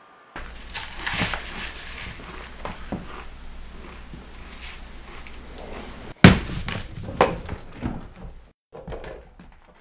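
A checkers game knocked over in a scuffle: scraping and knocks, then a loud crash about six seconds in, followed by a few more knocks and the clatter of checker pieces scattering.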